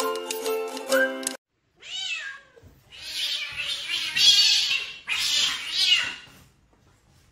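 A short music jingle cuts off about a second in; then a domestic cat cries out while a monkey wrestles it: one short meow about two seconds in, then two long, harsh, loud cries, the distress and defence calls of a cat in a fight.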